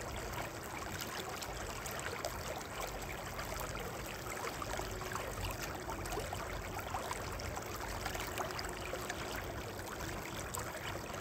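Steady rush of running river water, with small splashes and trickles in it.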